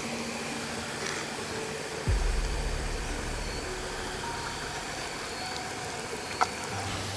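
Steady rushing of a forest stream, with a low thud about two seconds in and a sharp click near the end.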